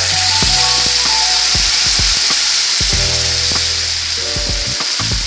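Hot oil with a tempering of mustard seeds, dried red chilli and curry leaves sizzling steadily in a kadai while cooked ash gourd in coconut paste is poured in.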